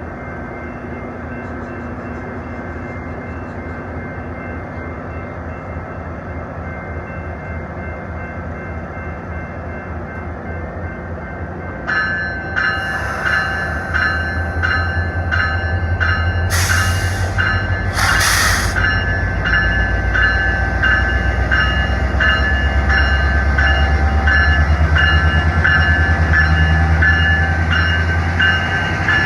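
A Metrolink train's MP36PH-3C diesel locomotive running at the station. About twelve seconds in, its bell starts ringing steadily, and the engine's low rumble grows louder as the train pulls away. Two short loud bursts of noise come a few seconds after the bell starts.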